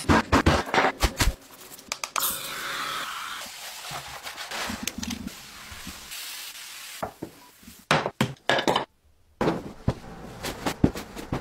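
Household objects being handled and set down on a bathroom counter: quick clicks, knocks and clatters in clusters, with a stretch of rubbing or hissing noise about two seconds in.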